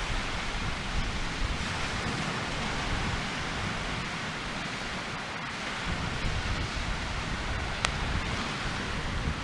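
Wind buffeting the microphone over a steady hiss, with one sharp crackle-like click about eight seconds in.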